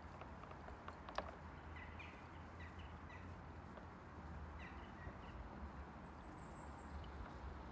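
Faint outdoor ambience: a low steady rumble with small birds chirping now and then and a short high twittering run near the end. A single sharp click about a second in is the loudest moment.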